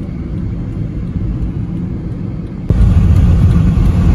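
Car road noise heard from inside the cabin, a steady low rumble that suddenly gets louder about two and a half seconds in.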